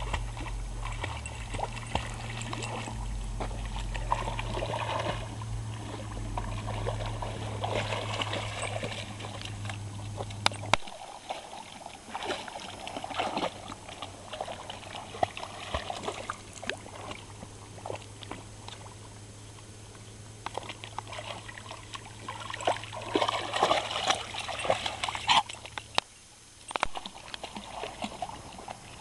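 A puppy paddling and wading through shallow lake water, splashing irregularly, with the loudest run of splashes near the end. A low steady hum underneath cuts off suddenly about a third of the way in.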